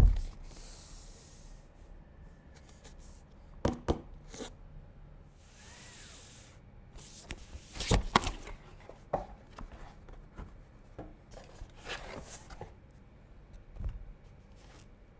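Hands handling computer parts and packaging at close range. A sharp knock comes first, then scattered clicks and knocks, with two short stretches of rustling as something slides.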